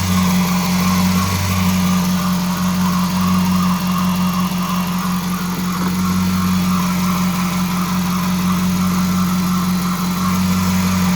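Dodge Charger's 5.7 Hemi V8 idling steadily, its newly fitted serpentine belt and tensioner pulley turning. The owner finds that a belt sounds kind of funny and thinks he may have put it on too tight.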